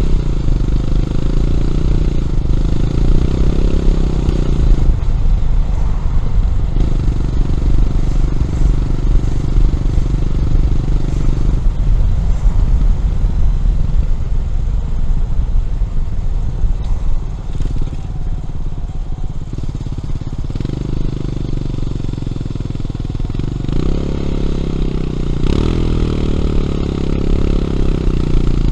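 Honda CB400SS single-cylinder engine through a Yamamoto aftermarket exhaust, heard from the rider's seat while riding. The throttle goes on and off several times: the pitch rises under acceleration a few seconds in and again near the end, with a quieter off-throttle stretch in between.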